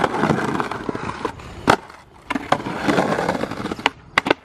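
Skateboard wheels rolling over rough stamped concrete, with a sharp board clack about midway. Near the end two quick clacks come as a flip trick is popped and the skater comes down.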